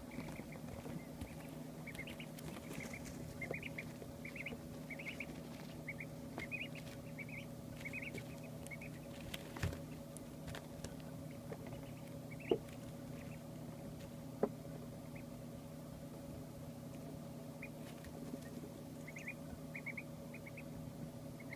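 Two-day-old ducklings peeping: short high chirps in a quick run through the first half, then a few more near the end. A steady low hum runs underneath, and there are a couple of sharp knocks in the middle.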